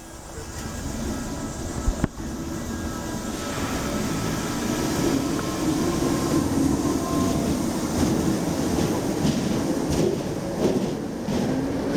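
DART 8100-class electric train pulling away, its running noise building over the first few seconds, with two sharp bangs about two seconds in and more sharp cracks near the end. The traction motors are spinning the wheels on a wet rail with low adhesion.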